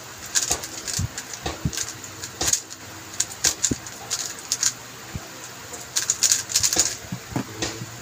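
A stickerless 3x3 speed cube being turned by hand: quick clusters of clicking and clacking as the layers snap round, with short pauses between the bursts.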